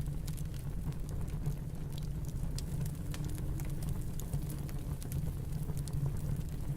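Fireplace crackling, with irregular small snaps and pops, over a steady low rumble of snowstorm ambience.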